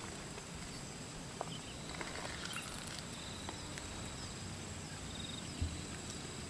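Insects buzzing steadily in the grass, a continuous high-pitched drone, with a few faint ticks from lemon halves being squeezed by hand over a stone mortar and a soft low thump near the end.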